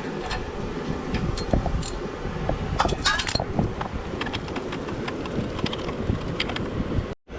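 Metal hand tools and small metal parts clinking and clicking irregularly, with a cluster of clinks about three seconds in, over a steady low hum. The sound cuts out briefly just before the end.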